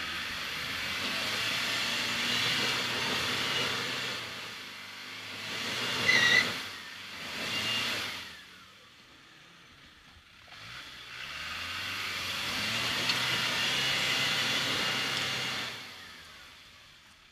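Land Rover Defender 90's turbodiesel engine revving hard under load as the vehicle climbs, with a loud hiss over it. A brief sharp squeal comes about six seconds in. The engine eases off around the middle, then pushes again for about five seconds before dying away.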